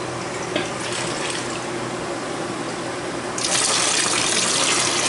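Water poured in a stream into a shallow plastic water dish, the loud splashing hiss starting about three and a half seconds in, over a steady low hum.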